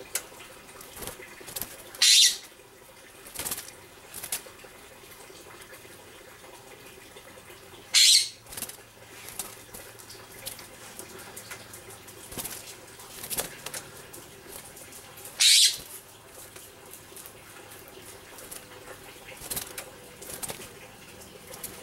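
Western scrub jays in a wire aviary: three loud, short, harsh bursts about six seconds apart, with light taps and flutters in between.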